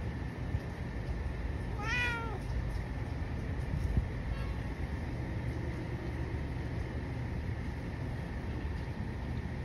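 A domestic cat meows once, about two seconds in: a short call that rises and then falls in pitch. A steady low rumble of background noise runs underneath.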